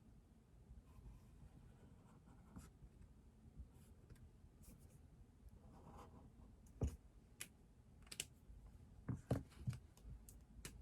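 Faint desk-study sounds: light pen-on-paper writing with scattered clicks and taps, a few sharper taps in the second half.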